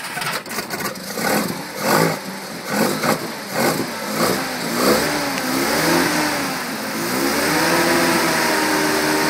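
Mazda 13B two-rotor rotary engine, breathing through a Weber IDA carburettor, just caught on its first start: it fires unevenly at first, its revs rising and falling, then settles into a steady fast run about seven seconds in. It has no choke, so it is held on the throttle and kept rich to stay running cold.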